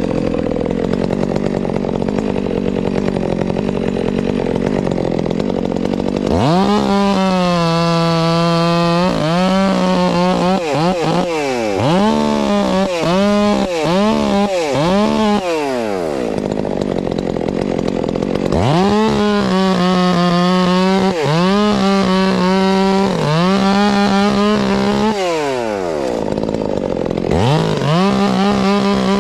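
Two-stroke chainsaw limbing a felled white oak. It runs lower for the first few seconds, then goes to full throttle about six seconds in, its pitch dipping and climbing again and again as the throttle is worked through cuts. It drops off briefly near the middle, comes back with more revving, and revs up once more near the end.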